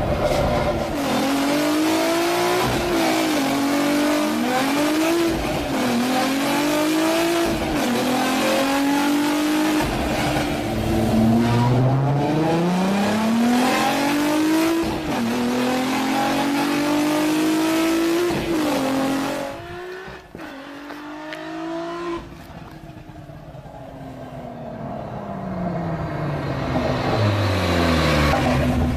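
Volkswagen Lupo with twin R32 VR6 engines accelerating hard through the gears. The engine note climbs and drops back at each of several upshifts. About twenty seconds in the sound drops off, then grows louder again toward the end with a falling pitch as the car nears.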